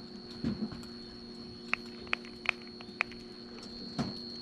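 Footsteps thudding softly on wooden pier boards, with four sharp clicks in the middle, over a steady low hum and a constant high-pitched whine.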